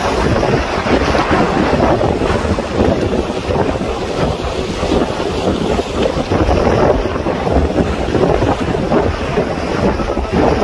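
Strong west-monsoon wind buffeting the microphone on an open boat at sea, a loud, unbroken rough rush mixed with the wash of high waves.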